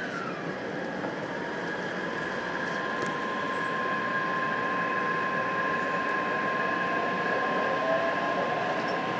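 Taipei Metro C381 train pulling away from a station, heard from inside the car: a steady high electric whine over the running noise, growing slowly louder as it gathers speed, with a further tone rising near the end.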